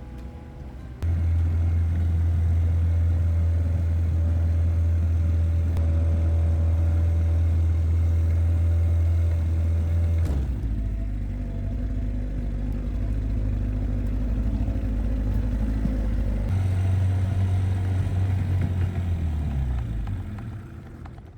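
Boat motor running steadily under way. Its pitch shifts about ten seconds in and again later, and it dies away near the end.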